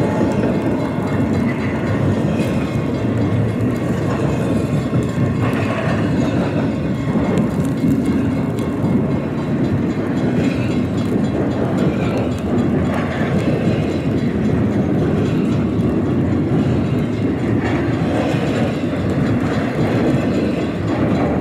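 Westbound double-stack container freight train rolling past, a steady loud rumble of wheels on rail.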